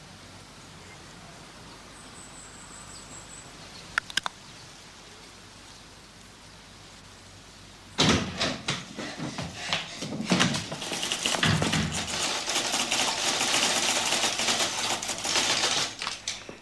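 Typewriter being typed on fast: a dense run of key strikes starts about halfway through and goes on almost to the end. Earlier there are two sharp clicks about four seconds in.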